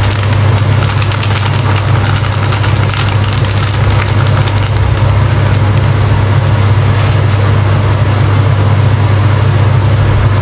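A steady, loud low hum runs throughout, like a motor or appliance running. Over it, in roughly the first four seconds, a plastic spice bag crackles and rustles as paprika is shaken out of it.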